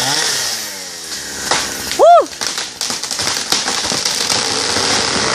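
Chainsaw engine dropping back and fading in the first second. About two seconds in, a brief loud call rises and falls in pitch, followed by a rapid run of snaps and crackles.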